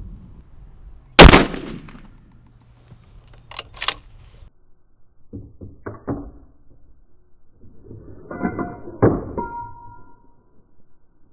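A single shot from a Bergara B14 bolt-action rifle in .300 Win Mag about a second in, the loudest sound by far. It is followed by several groups of sharp metallic clicks and clacks as the bolt is worked, with a brief metallic ring near the end.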